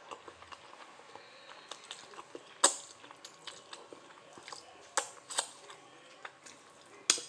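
Someone eating cheesy fire noodles close to the microphone: wet chewing and mouth sounds with many small ticks. Four sharp clicks are the loudest sounds, one a little under 3 seconds in, two close together around 5 seconds, and one near the end.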